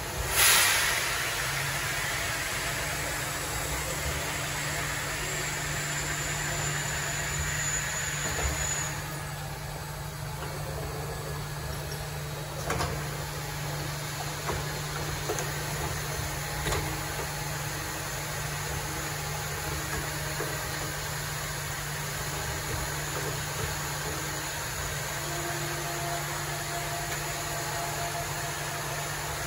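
Large Norte Verticent VS2 vertical machining centre powered up, giving a steady machine hum with a low, even tone. A short, loud burst of hiss comes about half a second in and fades quickly. The high hiss drops away about nine seconds in, and there is a single click a few seconds later.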